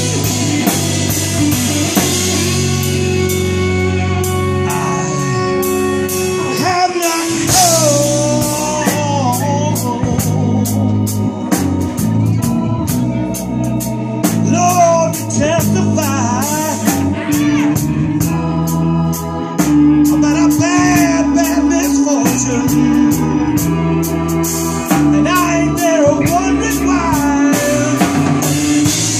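Live blues band playing: drum kit, electric bass, electric guitar and keyboards, with a man's lead vocal coming in about seven seconds in and carrying on.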